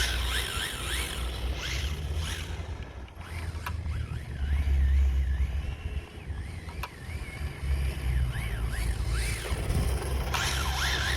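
Radio-controlled car's motor whining, its pitch swooping up and down again and again as the throttle is worked, over a low rumble, with a couple of sharp clicks.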